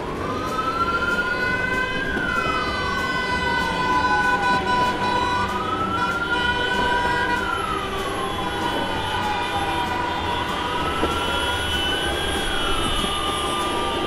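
Emergency-vehicle siren wailing in a slow rise and fall: about two seconds up, three seconds down, repeating three times, over a steady background noise.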